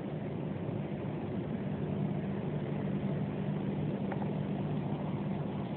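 An engine running steadily in the distance, a low even hum.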